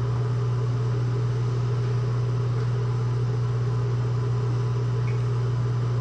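Steady low mechanical hum, one unchanging drone with a faint hiss over it, like a small fan or appliance motor running.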